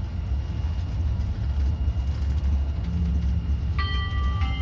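Stadler Citylink Class 399 tram-train running along the rails, heard from the driver's cab as a steady low rumble. Near the end an electronic two-note chime sounds, the alert ahead of an on-board announcement.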